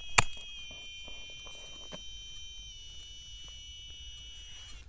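A metal detector's steady electronic tone, shifting slightly in pitch about halfway through, signalling a metal target in the soil. It begins with a sharp knock just after the start, and there are a few faint clicks of handling the soil.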